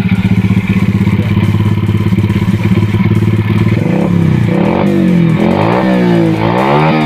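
Yamaha Crypton motorcycle engine being cranked over with its spark plug out for a spark test, a steady low mechanical hum with a fast pulse. From about four seconds in, the pitch swings up and down about once a second.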